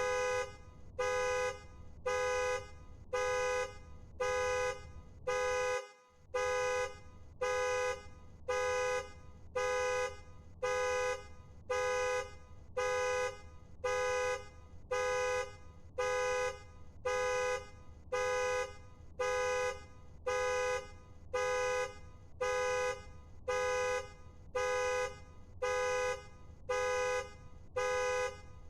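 Car alarm sounding the car's horn in short, even honks, about one a second, over and over.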